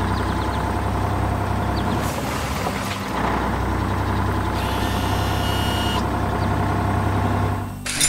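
Cartoon engine sound effect for a forklift, running steadily. A short hiss comes about two seconds in, and a longer high hiss with a thin whine runs through the middle.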